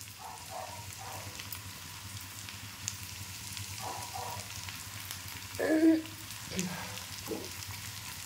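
Oil sizzling and crackling steadily in a frying pan as stuffed green chillies cook on chopped onions over a very low gas flame. A brief voice cuts in about six seconds in.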